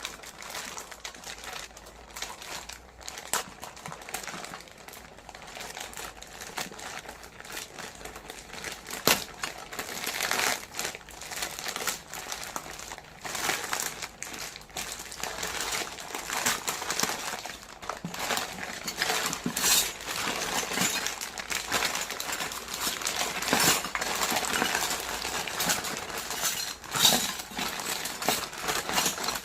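Plastic packaging crinkling and rustling as it is handled and opened, with frequent sharp clicks and taps of small plastic pieces from a miniature toy kitchen set.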